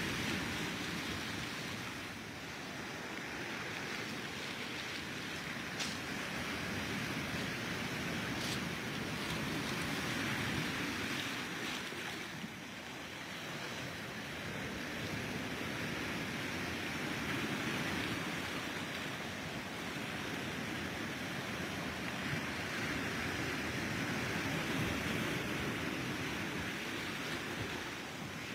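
Small waves washing and breaking at the shoreline: a steady wash of surf that swells and eases every several seconds.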